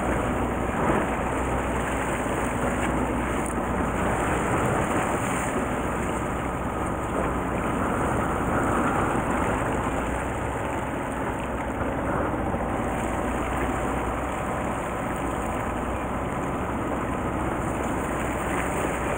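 Steady drone of a fishing boat's engine running, with a constant wash of water and wind noise over it.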